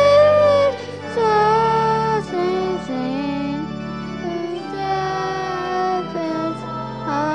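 Children's voices singing a slow song in long held notes, accompanied by a church organ's sustained chords.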